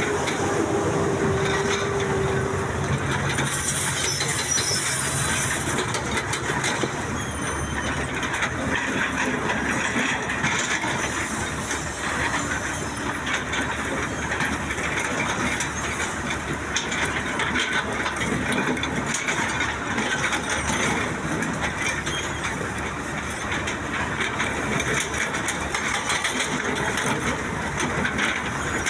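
Excavator at work, its diesel engine and hydraulics running steadily.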